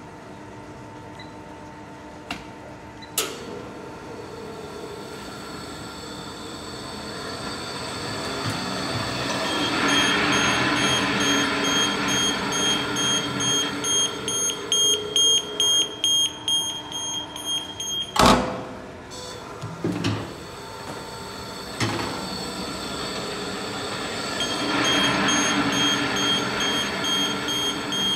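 Chocolate ball mill running after start-up: the agitator turning in the steel tank, its sound growing louder over the first ten seconds, with a sharp bang about eighteen seconds in. A rapid high electronic beeping runs alongside in two stretches.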